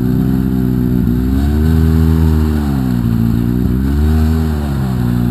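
Side-by-side UTV engine revved hard in about three surges, rising and dropping back, as the machine strains under load, stuck in a deep mud rut.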